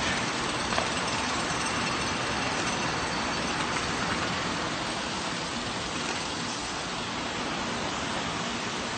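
Steady road traffic noise, an even rushing sound, with a light click just under a second in.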